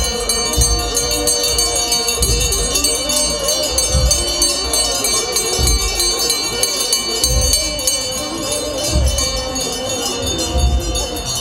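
Orthodox Tewahdo liturgical chanting by a procession of clergy, voices wavering, with continuous metallic jingling and low drum beats at uneven intervals of about a second or so.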